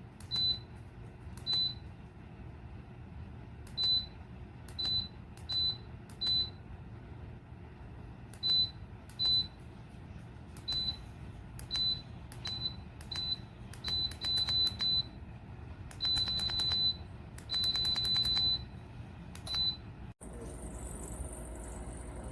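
Electronic key beeps from a ceramic space heater's control panel as its buttons are pressed, about twenty short single-tone beeps at an irregular pace, with two longer beeps of about a second near the end where buttons are held. A low steady hum runs beneath, and in the last two seconds a steady hiss with a high whine takes over.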